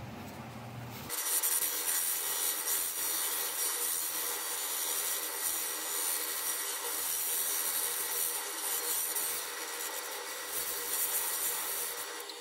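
Sandpaper rubbing on a snakewood turning spinning on a wood lathe: a steady hiss that starts suddenly about a second in.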